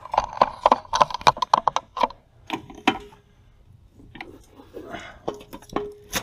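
Ridged aluminum RV step tread being wiped down by hand: a quick run of scratchy rubbing strokes for about two seconds, then scattered light clicks and taps.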